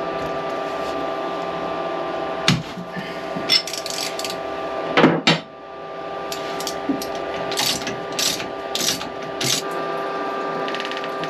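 Metal hand-tool work on a boat engine, taking out its sacrificial zinc anode. There are a few sharp metal knocks, the loudest a double knock about five seconds in, then several short scraping rasps, all over a steady hum.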